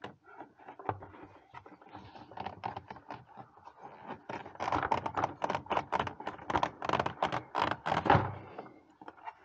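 A 2014 GMC Sierra's plastic engine cover is being wiggled and pried loose from its fittings, giving a run of irregular plastic clicks and rattles. They grow thicker and louder over the last few seconds.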